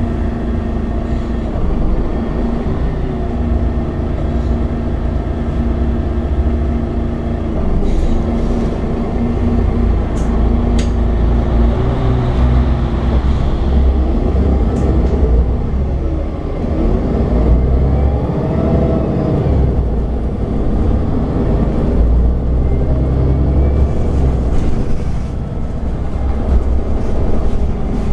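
MAN Lion's City 12C city bus running, its diesel engine and Voith automatic gearbox giving a steady low hum. The pitch rises and falls several times in the middle, with a few sharp rattles and clicks.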